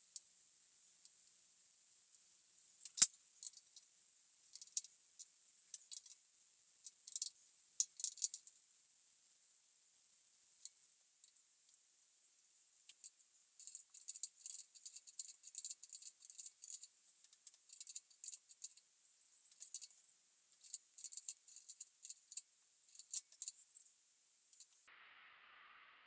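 Small metallic clicks and clinks of gauges, brass fittings and a spanner being handled while pressure gauges are fitted to a compressor's pressure switch. A sharp click comes about three seconds in, and a dense run of clicking from about halfway stops suddenly near the end.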